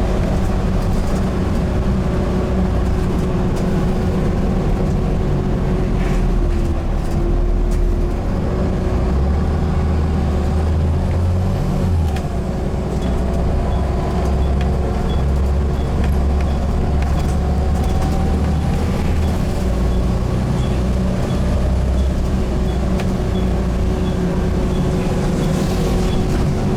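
Inside a Volvo B7TL double-decker bus, its Volvo D7C six-cylinder diesel engine pulling under load. About seven seconds in, the automatic gearbox kicks down a gear under hard throttle, and the engine runs harder and louder for the rest. A faint regular ticking sounds in the second half.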